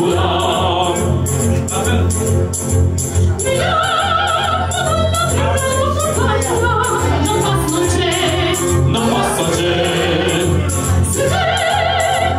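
Music with singing: a sung melody with wavering held notes over a steady bass and an even beat.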